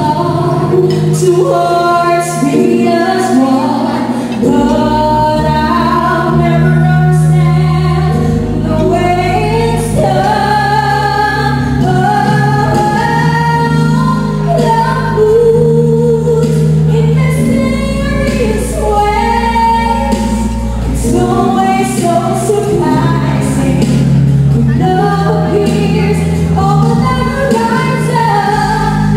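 A woman singing a slow ballad into a microphone, with held, gliding notes over instrumental accompaniment whose sustained low notes change every few seconds.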